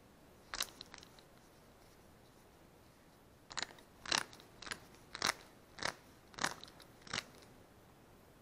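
Click-type torque wrench's handle being twisted to change its setting, clicking at each step of the adjustment: two clicks just after the start, then a run of about seven evenly spaced clicks, close to two a second, through the middle.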